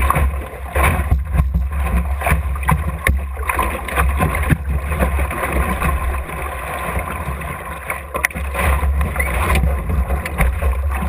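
Wind on the microphone making a steady low rumble, with water washing against the hull of an Optimist dinghy under sail and scattered sharp knocks from the hull and gear.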